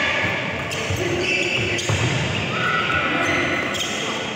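Badminton doubles rally: rackets hit the shuttlecock with three sharp strikes, with shoes squeaking and scuffing on the synthetic court mat. The sound echoes in a large hall.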